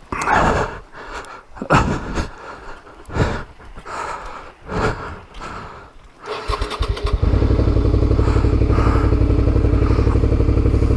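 A few separate knocks and thumps, then an adventure motorcycle's engine starts about six seconds in and settles into a steady, evenly pulsing idle.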